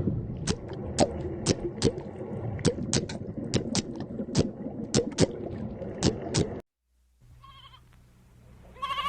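A series of sharp clicks or knocks, irregular at about two a second over a low rumble, stopping abruptly after about six and a half seconds. After a short pause, a wavering bleat starts near the end.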